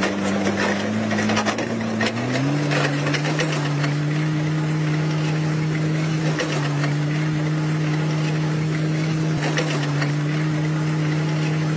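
Heavy diesel earthmoving machine running, its engine pitch rising about two seconds in and then holding steady, with scattered clanks and knocks.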